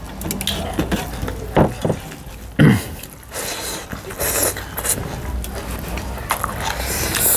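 Eating at the table: slurping and chewing, with scattered light clicks and clinks, including a louder slurp a little over two and a half seconds in and hissy slurps around four seconds in and near the end.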